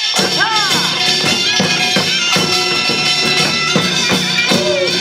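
Korean pungmul band playing: a taepyeongso shawm's melody with swooping pitch bends over drums and small gongs beating about three times a second.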